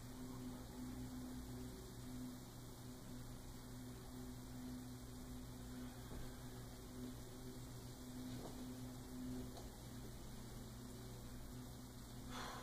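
Low, steady electrical hum with a faint hiss: room tone. A short click near the end.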